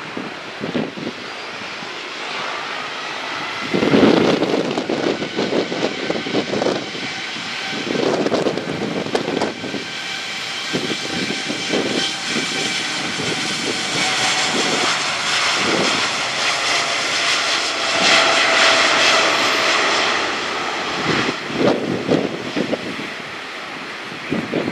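Boeing 787-8's Rolls-Royce Trent 1000 turbofans at takeoff thrust as the airliner makes its takeoff roll: a jet roar with whining tones above it that swells to its loudest about three quarters of the way through. Gusts of wind thump on the microphone now and then.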